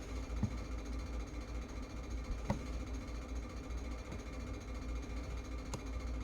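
A steady low hum, with three faint clicks spread through it.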